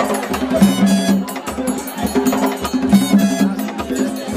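Traditional Zaouli dance music played live: drums and sharp, clacking percussion under a low pitched phrase that repeats every second or so.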